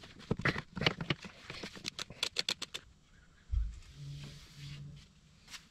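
Hand tools working a bolt loose in a diesel engine bay: a string of sharp metallic clicks, with a quick, even run of clicks a little over two seconds in, then a dull thump about three and a half seconds in.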